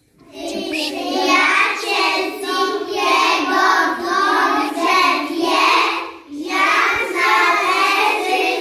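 A group of young children singing a song together in unison, with a short break between phrases about six seconds in.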